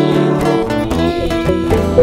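Instrumental passage of a funk song led by guitar, with a bass line and a steady beat.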